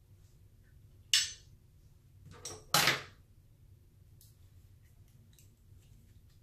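Hand-handling noises from working eyeshadow and clear slime: a short, sharp scrape or crackle about a second in and a louder double one near three seconds in, with faint ticks between.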